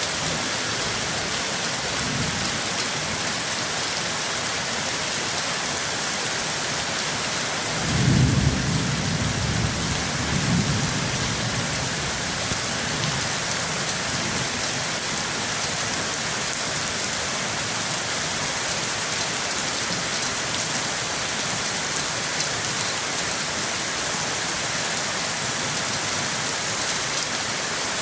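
Steady heavy rain hissing, with a low roll of thunder rumbling about a third of the way in, swelling twice before fading back into the rain.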